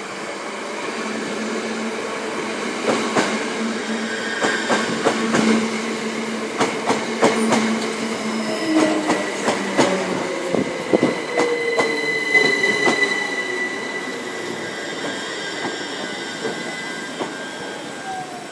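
Class 379 Electrostar electric train running slowly past along the platform: wheels click repeatedly over rail joints and points, a high steady whine, and lower motor whines that fall in pitch as it slows.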